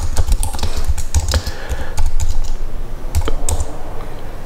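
Typing on a computer keyboard: an irregular run of key clicks with short pauses between bursts.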